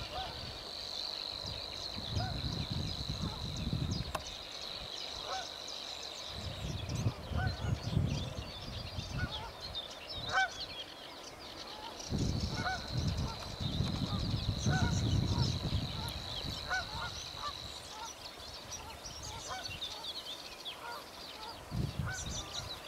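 Savi's warbler singing its reeling song: two long, even, high buzzing trills of about six seconds each, the second starting about halfway through. Short calls of other birds and bursts of low rumble come in between.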